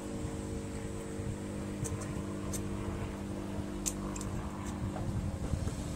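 Steady mechanical hum with several faint light clicks as small carburetor parts are handled.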